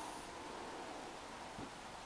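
Quiet, steady background hiss, with a faint soft knock about one and a half seconds in.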